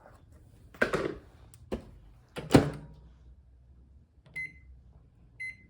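A few sharp knocks and clunks, then two short electronic beeps from a microwave oven's keypad.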